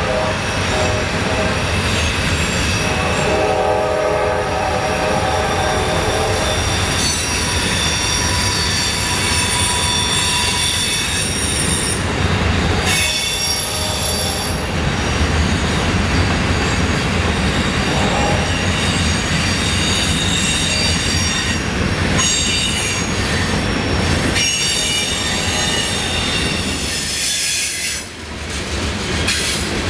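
Freight train of covered hopper cars rolling past: a steady rumble of wheels on rail, with high-pitched wheel squeal. A train horn sounds briefly at the start and again a few seconds in.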